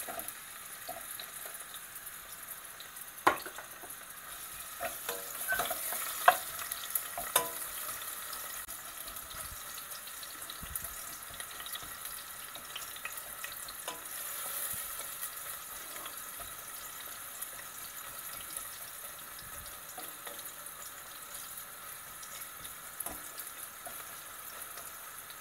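Sliced onions frying in hot oil in a stainless steel saucepan, sautéing to soften: a steady sizzle as they are stirred with a wooden spoon, with a few sharp knocks, the loudest about three and six seconds in.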